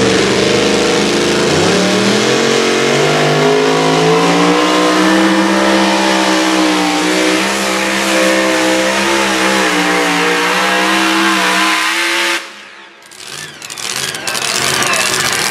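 Two-wheel-drive pulling truck's engine at full throttle hauling a pulling sled: the revs climb in the first couple of seconds, then hold high and steady. About twelve seconds in the engine cuts off abruptly as the truck comes to a stop at the end of its pull.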